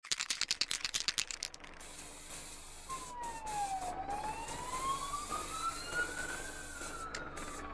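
A fast rattle for the first second and a half, then an emergency-vehicle siren wailing slowly, falling, rising and falling again, over a low steady rumble.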